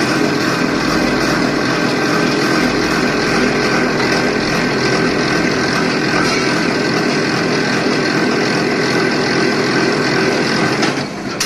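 B15 copper and aluminium wire stripping machine running steadily as a coil of wire is fed through it, a loud continuous mechanical whir with steady tones. It drops off shortly before the end as the wire runs out.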